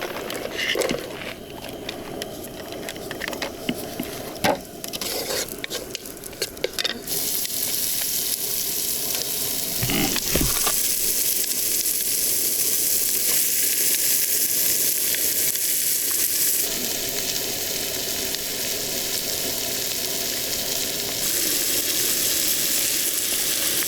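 Clicks and knocks of cookware, then about seven seconds in a loud steady sizzle starts suddenly as food goes into hot oil in a cooking pot, with a single low thud a few seconds later.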